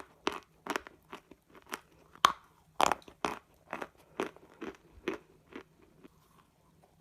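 Close, crisp crunching of someone biting and chewing hard, brittle pieces of baked clay pot, about two crunches a second. The crunches stop after about five and a half seconds.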